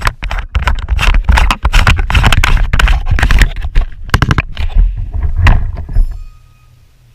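Loud, rapid, irregular knocking, clunking and scraping of gear and movement against a helmet-mounted camera. It stops abruptly about six seconds in, leaving faint repeated electronic beeps.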